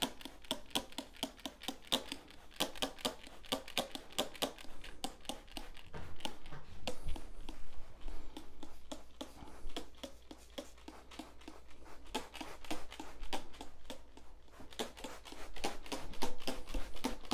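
Hand trigger sprayer squirting spot treatment onto carpet: many short, sharp spritzes in quick runs, a few a second.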